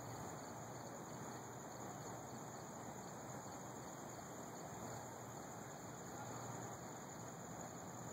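Faint steady background hiss picked up by a phone microphone outdoors at night, with a faint high-pitched pulse repeating about three times a second.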